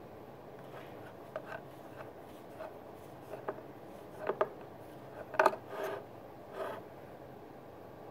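Handling sounds from a Wismec Predator 228 box mod and its tank: a few light clicks, then louder knocks and short scrapes about four to seven seconds in as the tank is twisted off the mod.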